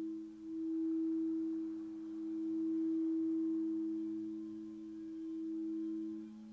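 Singing bowls ringing in two steady low tones that swell and ebb slowly; the higher tone fades away near the end.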